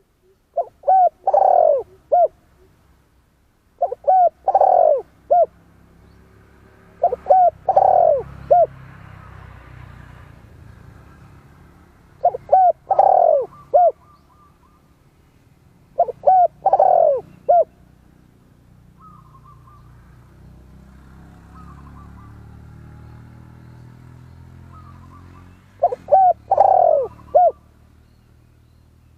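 Spotted dove cooing: six phrases of three or four deep coos, a few seconds apart, with a long gap near the end. Faint chirping of other birds and a low hum lie between the phrases.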